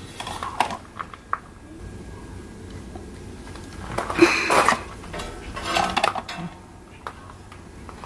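Light clicks and clatter of a small plastic LED marker-light lens and its wires being handled against the bus's aluminium side panel, with a brief louder sound about four seconds in.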